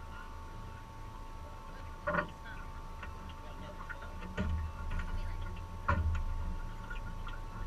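A few scattered knocks and clicks, about three in all, over a faint steady hum.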